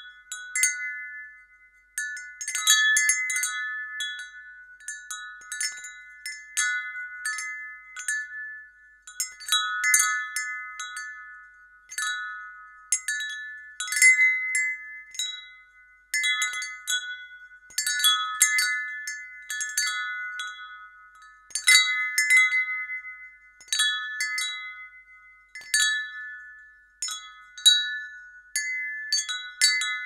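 Wind chime tinkling: clusters of strikes every second or two sound its four or five high notes, which ring on and fade. Several times it dies almost away before the strikes pick up again.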